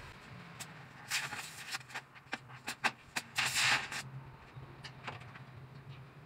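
Sped-up sound of arc welding on a steel truck body: short hissing, crackling bursts of the welding arc and scattered sharp metal clicks and knocks, over a low steady hum.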